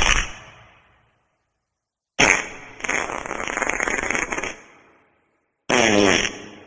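Wet fart sound effects, one after another. The tail of one fades out at the start. About two seconds in, a long, fluttering fart starts suddenly and lasts about two seconds. Near the end comes a short one that rises in pitch.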